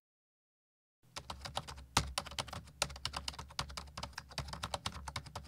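A rapid, irregular run of sharp clicks over a low steady hum, starting about a second in after dead silence.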